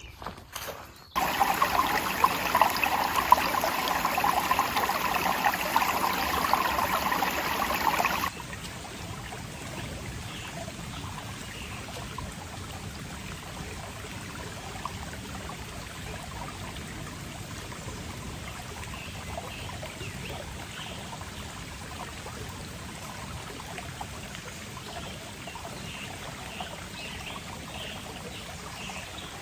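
Creek water running: a louder rush for about seven seconds, then a sudden cut to a quieter, steady flow. Faint short chirps come in over the flow in the second half.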